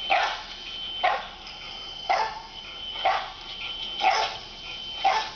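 A dog barking about once a second in a steady rhythm, played back from a video through laptop speakers, with a thin steady high tone between the barks.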